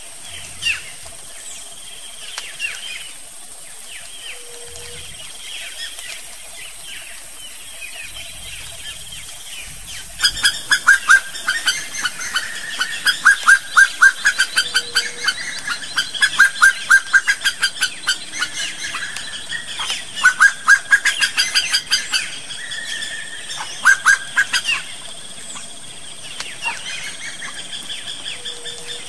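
Wood-rail calling: after a quieter stretch of faint background bird chirps, loud fast series of short repeated calls start about a third of the way in and go on in bouts with brief pauses.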